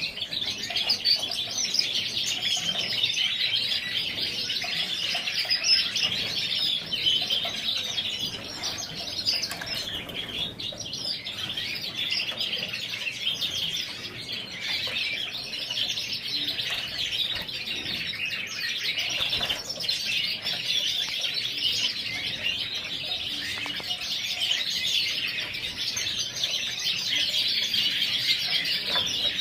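Many Yorkshire canaries chirping and singing together in a dense, continuous twittering.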